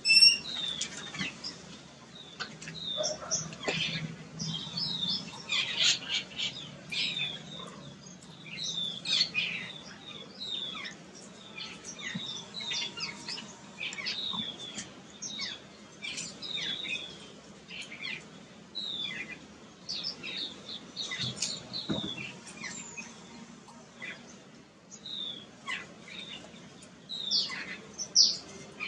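Jungle babblers calling: a steady run of short, high chirps and downward-sliding calls, several a second and overlapping.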